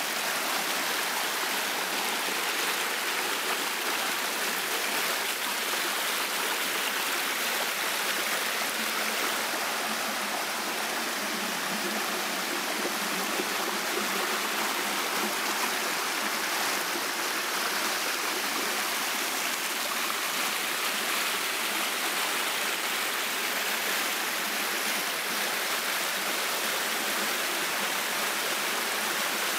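A shallow stream rushing over flat rock ledges and small cascades: a steady, even sound of running water.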